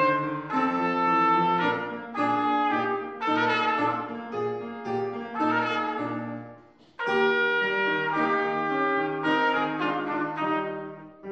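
Trumpet playing a melody with grand piano accompaniment, the piano repeating a low note about twice a second under the trumpet. The music breaks off briefly about seven seconds in, then a new phrase begins.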